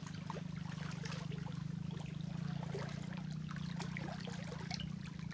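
Water splashing and sloshing as a man wades chest-deep through a muddy creek, with a steady low hum underneath.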